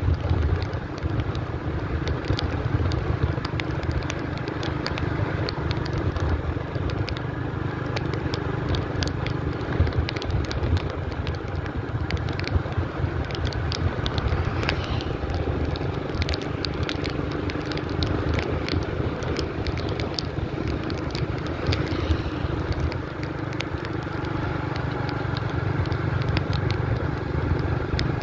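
Motorbike engine running steadily on the move, a low rumble with a faint steady hum above it, and frequent small crackling clicks over it.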